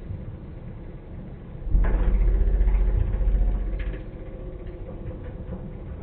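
Slowed-down hum of a running microwave oven, and about two seconds in a sudden deep boom as the flashlight's batteries explode inside it, rumbling for about two seconds before it fades back to the hum.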